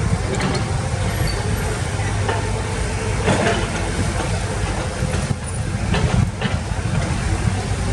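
Heavy diesel construction machinery running steadily, with several short knocks and scrapes scattered through.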